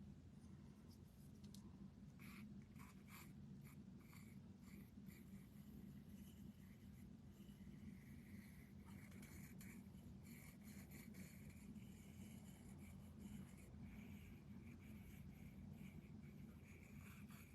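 Faint, irregular scratchy strokes of a paintbrush working paint onto a wooden cutout, over a low steady room hum.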